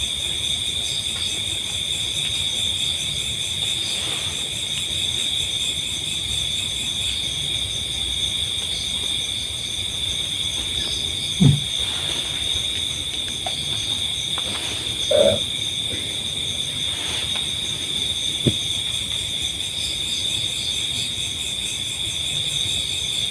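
Steady chorus of night insects, a continuous high trilling. A few brief, faint low sounds break in around 11, 15 and 18 seconds.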